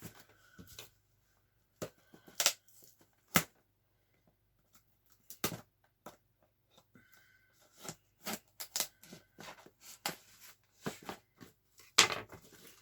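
Hands handling a cardboard shipping box: scattered sharp taps and knocks, a few of them louder, with short scraping and tearing of packing tape and cardboard.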